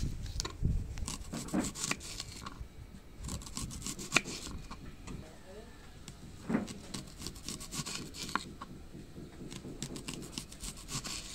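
Red onion being sliced into rings with a kitchen knife on a wooden chopping board: a run of irregular crisp crunches as the blade cuts through the onion and taps the board.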